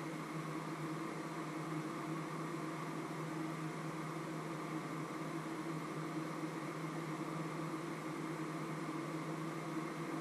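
A steady machine hum with an even hiss, its pitch unchanging.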